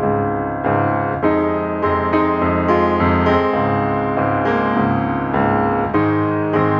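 Background music: piano playing a gentle melody, with new notes and chords struck about every second.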